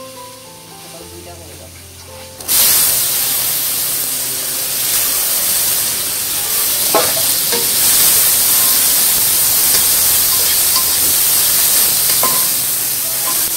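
Sliced onions hit hot oil in a wok about two and a half seconds in, setting off a sudden loud sizzle that carries on steadily as they fry. A few sharp clicks of a metal spatula stirring the onions cut through it.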